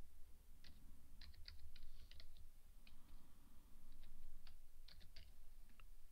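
Computer keyboard typing: short, irregular key clicks in quick runs and pauses.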